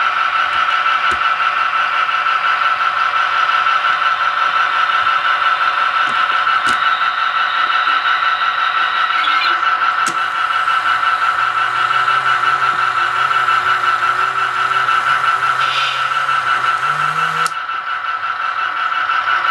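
Roco VT 37 Regioshuttle HO-scale model diesel railcar running, a steady engine-like sound with a constant high whine. A lower hum joins about halfway through, rises in pitch, then cuts off sharply near the end.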